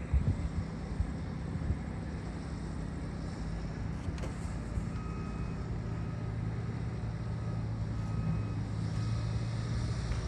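Heavy engine running steadily, growing louder in the second half, with a faint backup alarm beeping about once a second; a few sharp knocks in the first second and a half.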